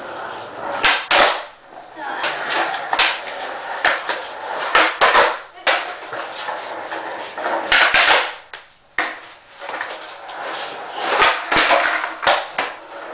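Skateboard flip tricks on a concrete floor: a series of sharp clacks as the wooden deck is popped and the board and wheels slap back down, with the wheels rolling on the concrete in between.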